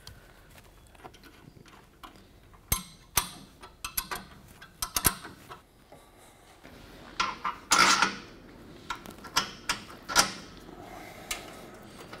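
Hand tools and small steel parts clinking and knocking during suspension hardware work: a scatter of sharp metallic clicks, with a longer, louder rattling scrape a little past the middle.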